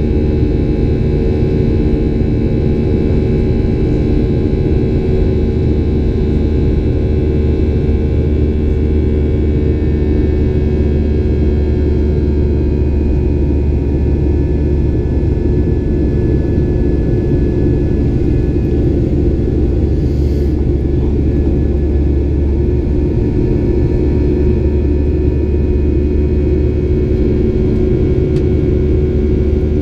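Boeing 737-800's CFM56-7B turbofan engines running steadily at climb power after takeoff, heard from inside the cabin beside the engine. A low rumble with several steady humming tones over it.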